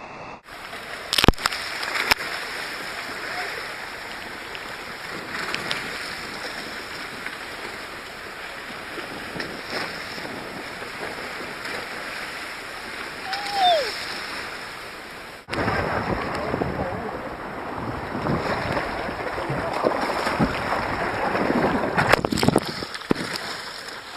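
Sea water splashing and churning around a moving boat, with wind on the microphone. A short falling call comes about 13 seconds in. After a break about 15 seconds in, the splashing is louder and choppier.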